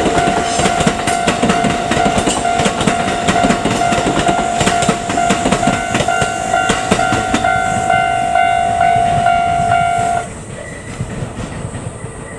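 A Japanese level-crossing alarm rings with a steady, high, repeating electronic ding while a Kintetsu limited express train passes, its wheels clacking over the rail joints. The alarm and the loud train noise both stop about ten seconds in as the crossing clears.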